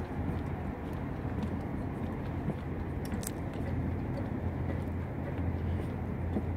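Steady low rumbling noise, with a brief high click about three seconds in.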